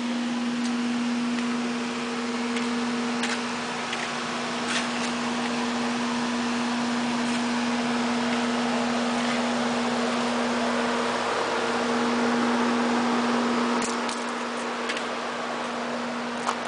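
Steady mechanical hum with a fainter higher tone above it over an even hiss, like a motor or fan running, with a few faint clicks scattered through.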